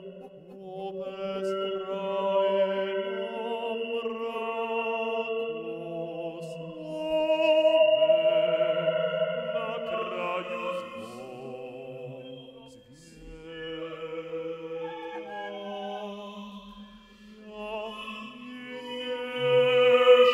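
Contemporary vocal music: several sustained sung tones with vibrato overlap in a slowly shifting chord-like cluster. It swells loudest about eight seconds in and again near the end.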